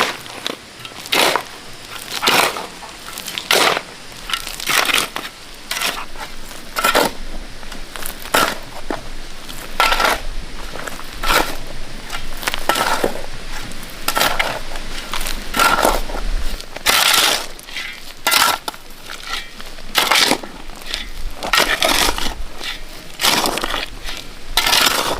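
A shovel scraping and crunching through gritty concrete mix in repeated strokes, a little under one a second.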